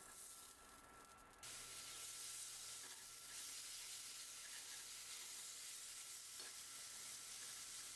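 Food sizzling in a frying pan, a faint steady hiss that gets louder about a second and a half in, when a low steady hum also starts.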